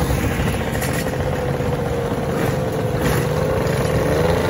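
Motor scooters towing trolleys of racing tyres, their small engines running steadily at low speed. The engine note rises slightly near the end.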